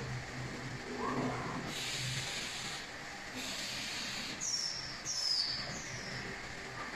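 Robotic bag palletizer at work over a low machine hum, with two hisses of released compressed air about two and three and a half seconds in. Near the end come three short, high squeaks that fall in pitch.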